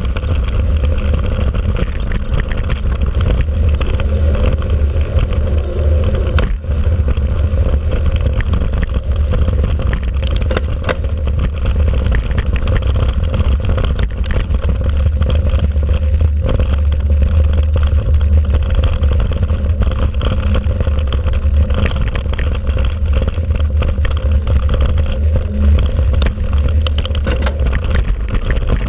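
Steady low rumble of wind buffeting and tyre vibration picked up by a handlebar-mounted camera on a mountain bike riding a dirt track, with light rattling from the bike over bumps.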